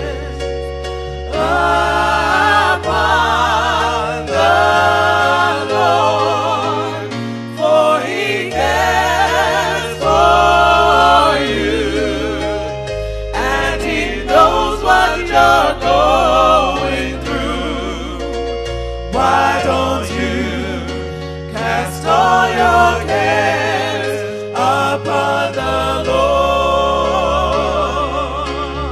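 Gospel singing: voices with vibrato over a low bass accompaniment, phrase after phrase with short breaks between.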